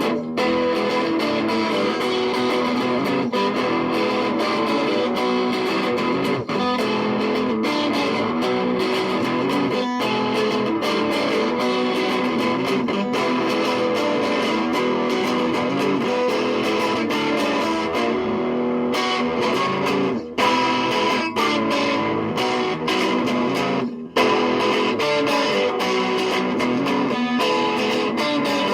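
Background music led by guitar, running steadily with a couple of brief breaks.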